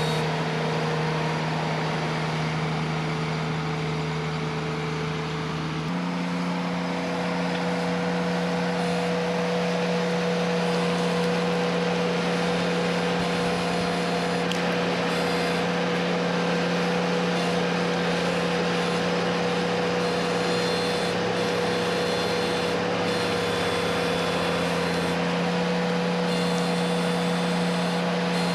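An engine running steadily at a constant speed, its pitch stepping up slightly about six seconds in and then holding.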